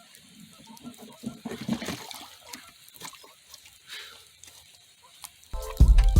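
Faint, irregular splashing and sloshing of water with small clicks. Near the end, loud music with a deep bass starts suddenly.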